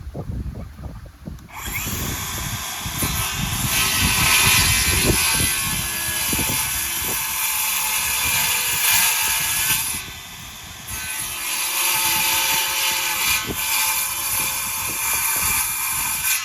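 Handheld power tool running, in two long runs with a short break just after the middle.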